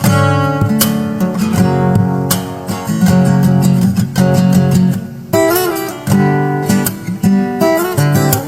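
Acoustic guitar music: strummed chords and plucked notes.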